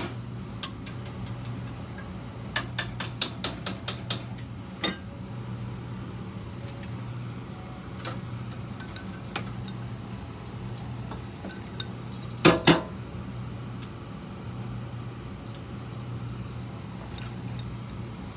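Clinks and taps of a plate and utensils being handled on a stainless steel kitchen counter: a run of small clicks a few seconds in, then two loud knocks close together about twelve seconds in, over a steady low hum.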